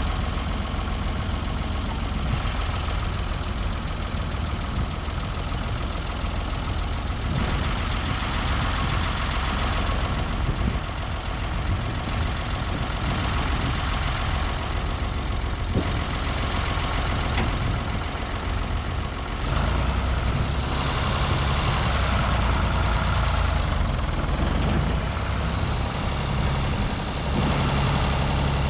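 Ford 4000 tractor's three-cylinder diesel engine idling steadily, standing still; the engine note grows louder about twenty seconds in and again near the end.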